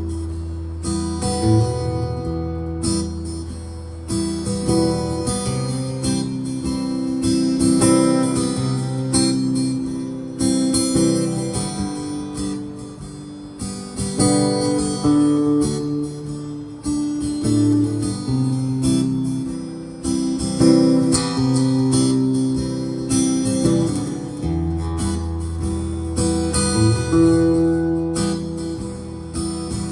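Fender Hellcat acoustic guitar being played, strummed and picked chords ringing on with a shifting low bass note.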